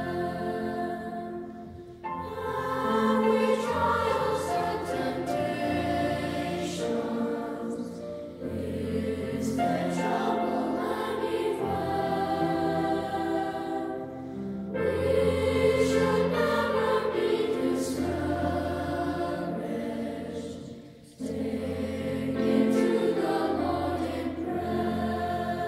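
Background music of a choir singing, in long sustained phrases with brief pauses about every six seconds.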